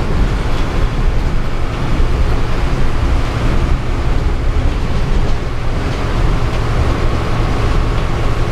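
Mercedes-Benz city bus driving in heavy rain, heard from the driver's seat: a steady low engine rumble under the hiss of tyres on the wet road and the rain.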